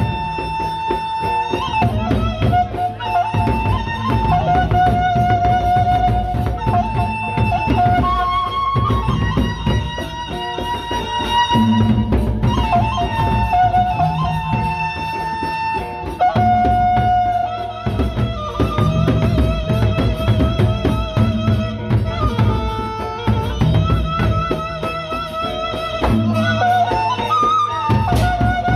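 Sasak gendang beleq ensemble playing: large double-headed gendang beleq drums beaten in a dense rhythm with cymbals, under a wavering melody of long held notes.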